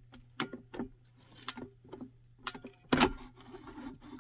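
Irregular clicks and knocks from an Aria ceramic air fryer's basket drawer as it is tugged at, with the loudest knock about three seconds in. The drawer is stiff and hard to pull open.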